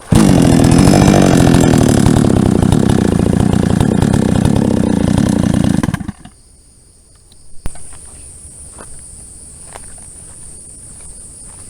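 Two-stroke engine of a 22-inch JCK chainsaw starting at once and running loud for about six seconds in a test run, then cutting off suddenly.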